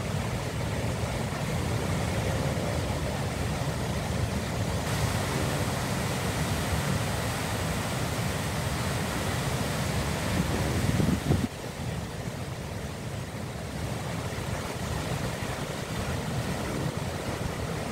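Rough surf breaking and washing over a rocky shore, with wind rumbling on the microphone. The noise swells to its loudest about eleven seconds in, then drops suddenly to a lower level.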